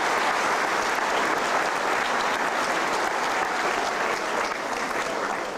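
Audience applauding, a steady mass of clapping that tapers off near the end.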